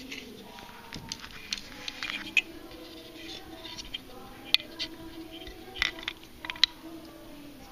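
Scattered sharp clicks and taps of hands handling a quadcopter kit's wire leads and frame plate, irregular, the loudest about halfway through.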